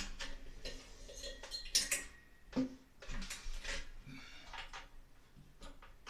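Irregular metallic clinks and scrapes of a hand tool and parts knocking inside the metal housing of a Broan 655 bathroom heater and exhaust fan unit, a few of the clinks ringing briefly.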